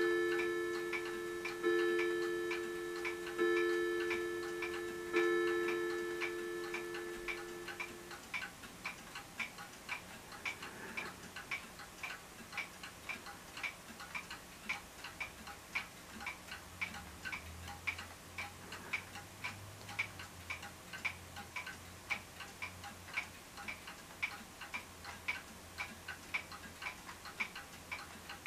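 A clock ticking steadily about twice a second, opening with four identical two-note chime strikes, less than two seconds apart, that ring on and die away over the first several seconds.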